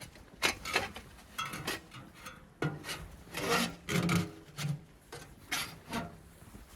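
A series of about a dozen irregular scraping strokes, spaced unevenly.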